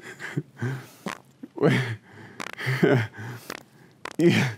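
A man chuckling and snorting: a run of short, irregular breathy bursts, some with a low voiced buzz.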